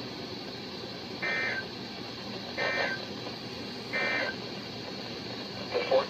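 Three short screechy bursts of SAME digital data, the end-of-message code that closes a NOAA Weather Radio required weekly test, played through a RadioShack weather radio's speaker about a second and a half apart. Faint static hiss between the bursts.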